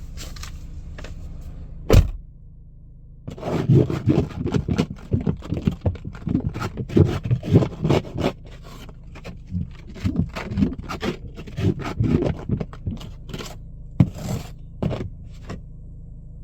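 A snow brush or ice scraper being dragged over the car in quick, irregular strokes, clearing snow, after a single loud thud about two seconds in. A steady low engine hum runs underneath from the car warming up.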